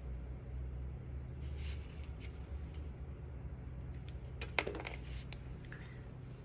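Pen scratching on watercolor paper in short, scattered strokes as fine line details are drawn, with a sharp click about four and a half seconds in.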